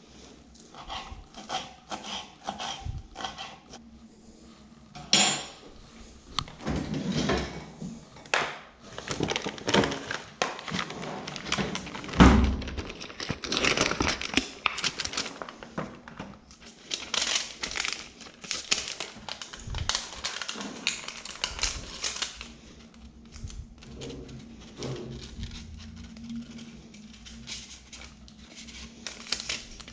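Goods and packaging being handled: irregular clatter, knocks and crinkling, with one heavy thud about twelve seconds in.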